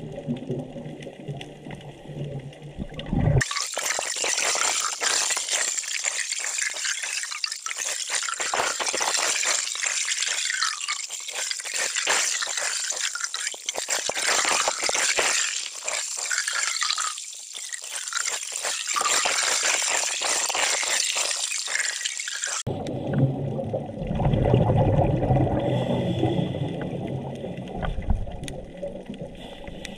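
Underwater sound picked up by a diving camera: a low bubbling rumble, which changes abruptly about three seconds in to a dense, high crackling hiss of the sea. About seven seconds before the end it switches back just as abruptly to the low bubbling rumble.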